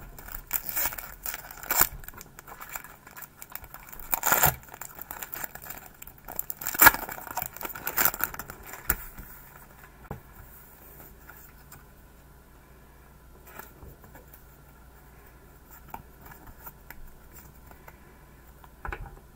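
Foil booster pack of trading cards being torn open and its wrapper crinkled, with cards handled. Several sharp, loud rips and rustles come in the first nine seconds, then quieter, scattered handling sounds.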